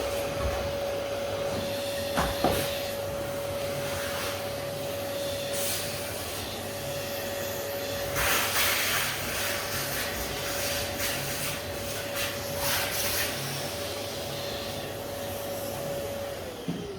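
An electric power tool's motor running steadily with a high hum, with louder hissing stretches in the middle. Near the end it is switched off, and the hum falls in pitch as the motor winds down.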